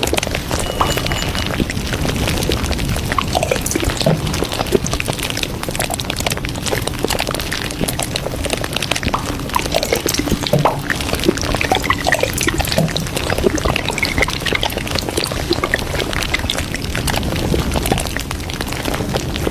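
A steady, water-like rushing noise, dense with small crackles and clicks.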